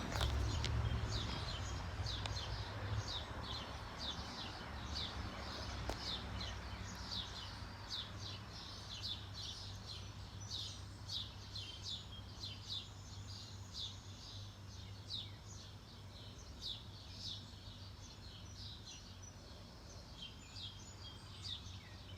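Vintage Dominion 20-inch box fan coasting down after being switched off, its low hum and air noise slowly fading; the owner puts its short spin-down time down to bearings that need oiling. Birds chirp over it about twice a second.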